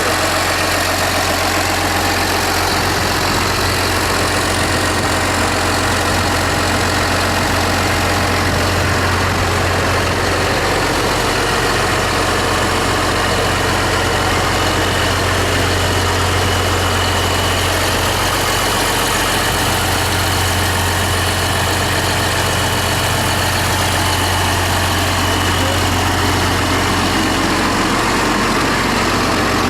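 2008 New Holland T8030 tractor's diesel engine idling steadily.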